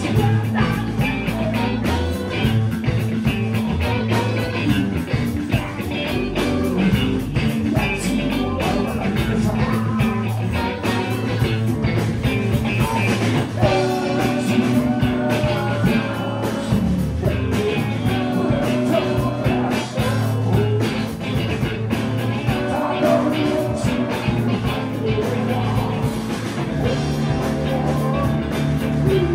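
Rock band playing live: electric guitars through Marshall amplifiers and a drum kit, with a lead singer singing over them, loud and continuous.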